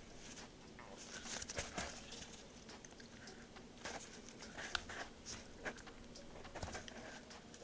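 Faint, scattered small clicks and scrapes of hands working the stiff plastic takedown lever into the frame of a SAR 9 compact pistol.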